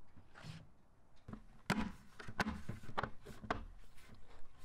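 Handling noise from a shop-vac hose, PVC elbow and plastic bucket lid: a scatter of short clicks and light knocks.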